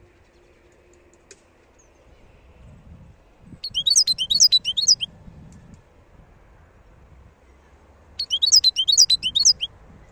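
European goldfinch singing two short phrases of rapid, high notes, each about a second and a half long and a few seconds apart.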